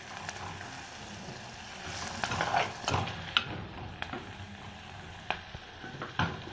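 Sliced onions and green chillies sizzling in hot oil in an earthenware clay pot, stirred with a metal slotted spoon that scrapes and knocks against the pot at irregular intervals.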